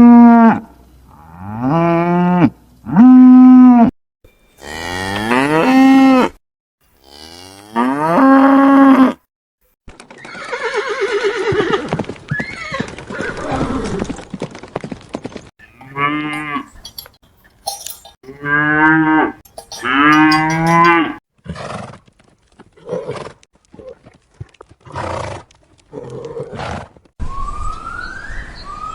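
Farm animals calling one after another: a run of loud drawn-out calls of about a second each, a rougher, noisier stretch with wavering pitch in the middle, then shorter calls. A few quick rising chirps come near the end.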